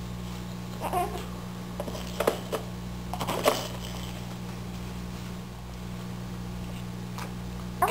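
Baby babbling briefly about a second in, followed by a few sharp taps and knocks on the plastic activity-toy tray of the high chair, over a steady low hum.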